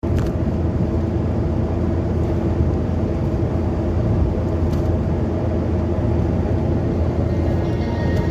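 A car driving along a highway, with a steady low rumble of engine and road noise.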